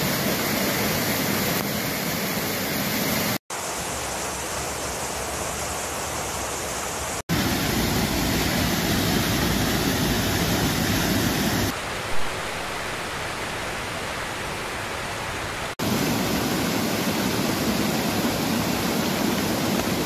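Waterfalls rushing: a steady wash of falling water heard in five short takes, each cut off abruptly and replaced by the next at a slightly different level.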